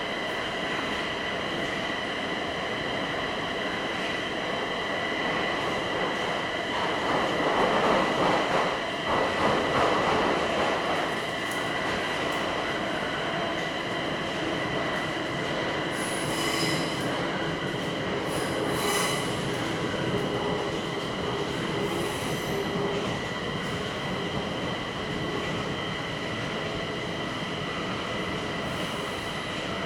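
Metro train running through a tunnel, heard from inside the passenger car: a continuous rumble with a steady high-pitched whine. The running noise swells louder for a few seconds about a quarter of the way in. A few brief sharp high-pitched sounds come near the middle.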